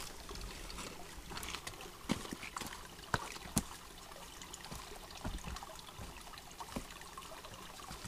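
Shallow creek water trickling over rocks, with scattered sharp knocks and crunches of footsteps on rocks, sticks and leaf litter.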